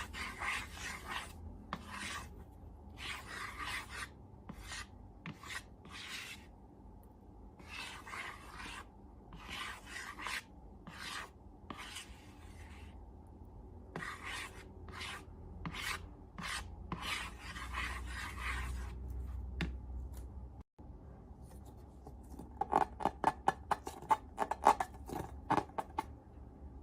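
Close-up handling sounds of slime making with balloons: a series of rasping, rubbing strokes about one a second, then, after a short break, a run of louder sharp crackling clicks.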